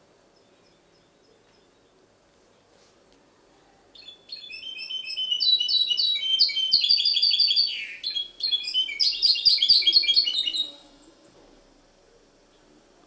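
Goldfinch × canary hybrid (mixto) singing: starting about four seconds in, a fast run of high twittering trills and repeated notes for about seven seconds, with a short break about halfway through.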